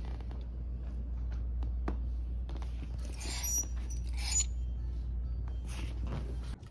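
Background music with a steady bass line that stops just before the end. Over it, clothes hangers click and scrape along a metal rack as shirts are pushed aside, loudest about three to four and a half seconds in.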